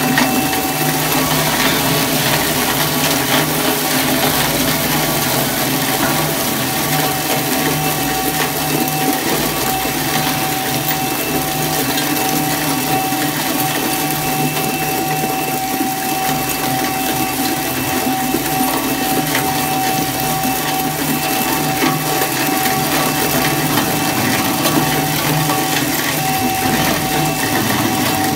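Twin-shaft scrap metal shredder running and chewing through steel wire: a dense, steady grinding and crunching of metal in the cutters, over a constant whine from the drive.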